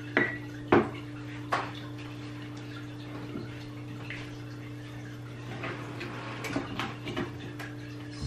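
A measuring cup clinking against a glass jar of brown sugar three times in the first two seconds as the sugar is scooped, then a few faint light taps, over a steady low hum.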